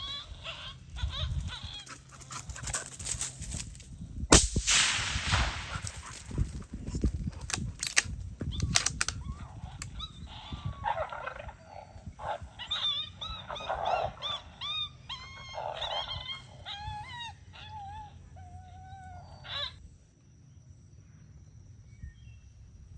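A single loud rifle shot about four seconds in, with a trailing echo. Around it are high canine whines, and from about ten seconds in a long run of short rising-and-falling yelps and yips that stops near the end.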